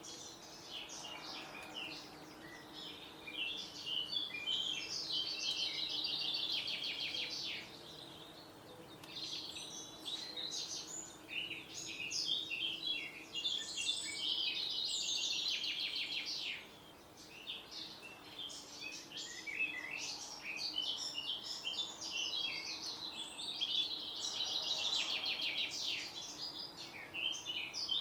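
Songbirds singing: long, fast trilled phrases that rise and fall every few seconds, with a faint steady low hum underneath.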